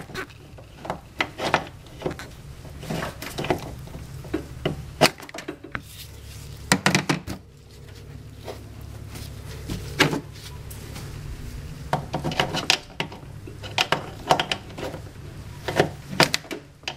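Metal wrench clinking and knocking against the brake line fittings of a master brake cylinder while a line nut is worked loose, in irregular taps and clicks, some in quick clusters, over a steady low hum.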